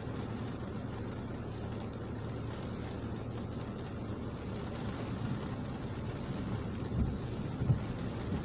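Rain pattering on a car's windscreen, heard from inside the cabin over the steady low hum of the idling engine. Near the end the windscreen wiper sweeps across the glass with two short low thumps.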